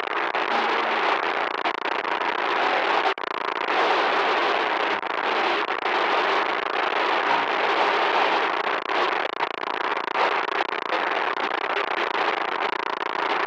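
Loud, continuous static noise: a dense hiss with no tones in it, briefly dropping out for an instant about three seconds in.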